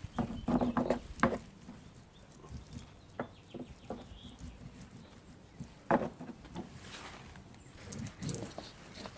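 Irregular knocks, taps and scraping from hand work laying resin-wet fiberglass matting on a boat transom. There is a cluster of them in the first second and a sharper knock about six seconds in.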